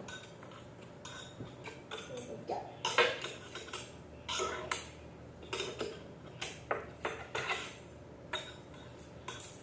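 Loose plastic keycaps and keyboard parts being handled and rummaged through, giving irregular clicks and clinks, with a sharper knock about three seconds in.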